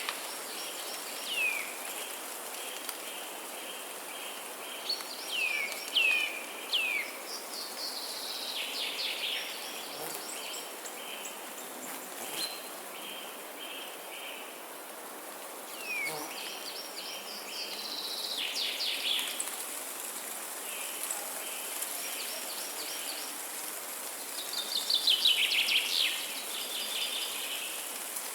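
Several forest birds singing, with overlapping songs of downward-sweeping whistled notes and quick series of short repeated chirps, over a steady background hiss.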